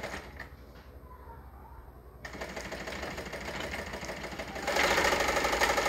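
Pfaff 130 sewing machine, driven by a servo motor through a belt, running with a fast, even stitching rattle. It starts about two seconds in, then runs faster and louder for the last second or so before stopping.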